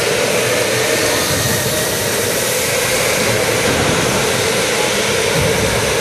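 Electric go-karts racing laps on an indoor track, giving a steady, even whirr with a constant whine, with no single event standing out.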